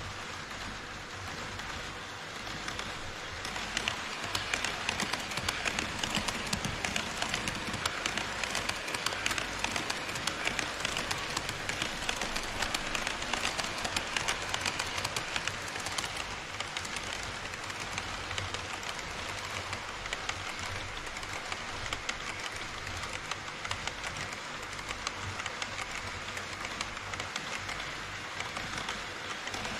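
HO-scale model trains running on KATO Unitrack: a steady rattle of metal wheels clicking over the rail joints, growing louder about three seconds in as a train nears and passes the camera.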